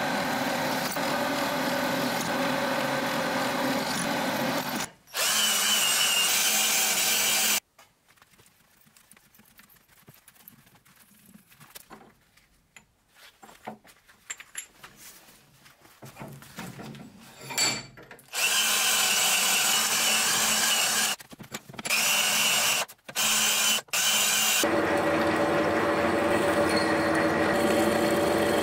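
A twist drill in a machine spindle boring through metal, with the steady motor tone and cutting noise of the drill, heard in several stretches broken by abrupt cuts. Between them, a long quieter stretch holds only light clicks and knocks of a metal part being handled in a vise.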